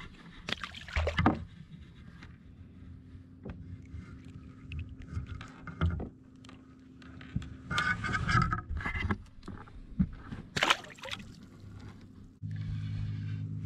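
Knocks and scrapes on a plastic fishing kayak as small snapper are handled and put back over the side. There is a brief rushing, splashy burst about eight seconds in and a sharp knock a little later, and a steady low hum comes in near the end.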